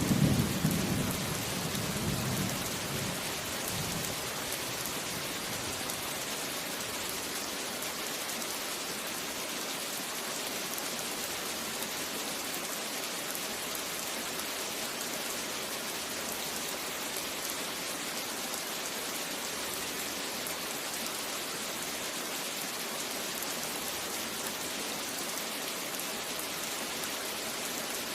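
Steady rain falling, an even hiss, with the tail of a thunder rumble fading out in the first few seconds.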